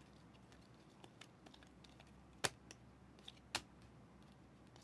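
Faint ticks and clicks of a stack of 2021 Prizm football cards being flipped through by hand, with two sharper clicks about two and a half and three and a half seconds in.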